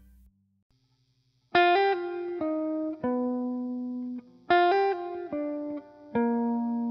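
Background music: a slow melody of single ringing notes that begins about a second and a half in and repeats the same phrase about three seconds later.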